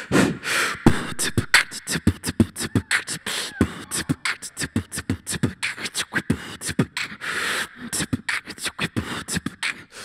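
A woman beatboxing into a handheld microphone: a fast, steady rhythm of mouth-made drum sounds, low kick-like thumps alternating with sharp clicks and hisses, amplified through a PA system.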